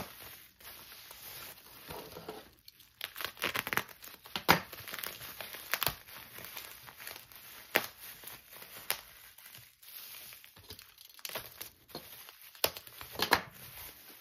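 Plastic bubble wrap crinkling and rustling as hands pull it open and unfold it, with irregular sharp crackles.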